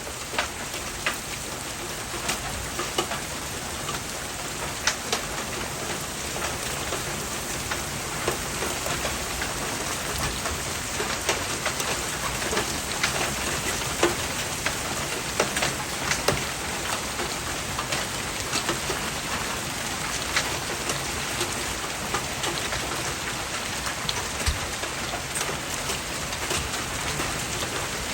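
Hailstorm: a steady downpour with many sharp, irregular hits of hailstones striking surfaces, the hits growing a little more frequent in the second half.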